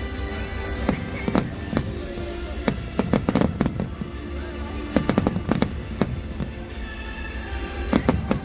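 Fireworks bursting in quick clusters of sharp bangs, over steady music playing underneath.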